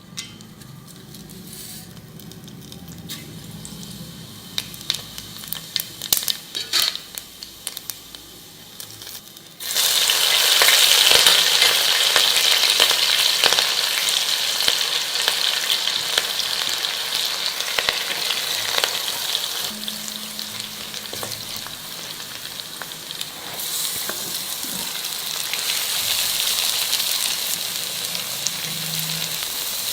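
Food frying in hot oil in a cooking pan. For the first ten seconds there is a low sizzle with sharp utensil clicks. About ten seconds in, a loud sizzle breaks out as something goes into the hot oil, and it keeps sizzling after that.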